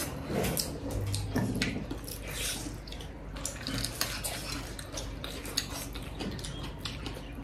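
Close-up mukbang eating sounds: wet chewing and lip smacking, and fingers squelching in saucy chilli momo, with small clicks against plates.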